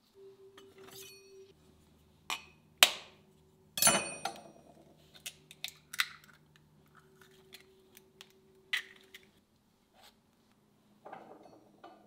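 An egg cracked against a glass bowl: a few sharp taps and knocks, the loudest about four seconds in and ringing briefly, then lighter clinks of glass and dishes. A faint steady hum runs underneath.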